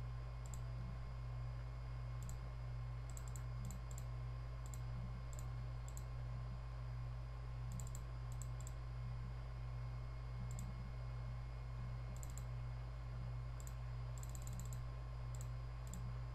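Computer mouse clicking at irregular times, single clicks and quick runs of several, over a steady low electrical hum.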